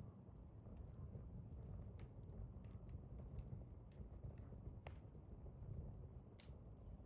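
Hardwood embers crackling faintly in a fire pit: scattered sharp ticks and pops over a low steady rumble.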